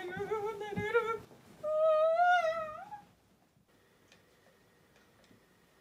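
Two drawn-out, wavering hum-like vocal sounds, the second higher and louder and rising at its end, then near silence.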